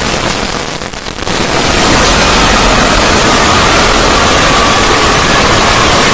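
Synthetic 'void' sound effect: a loud, dense rushing noise with a faint steady tone running through it. It dips for the first second or so, then swells back and holds steady.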